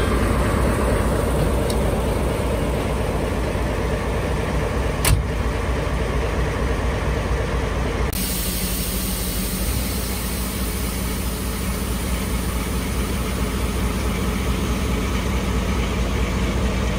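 Diesel locomotive, a JNR DE10, idling with a steady low engine hum, and one sharp metallic clank about five seconds in.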